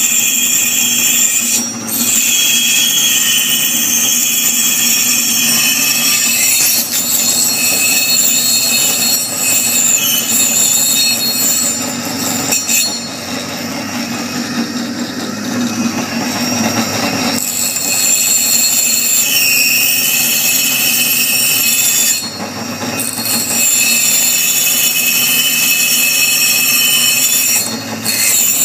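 A machine running loudly with a continuous high-pitched screeching, grinding sound over a steady low hum, briefly easing off several times.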